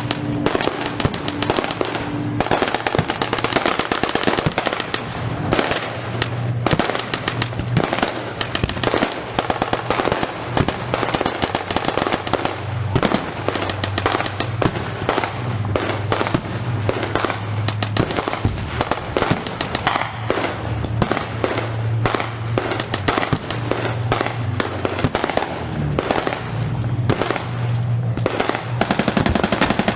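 Staged air-raid battle effects: a rapid, unbroken run of sharp gunfire-like cracks and firework pops. Music with held low notes plays underneath.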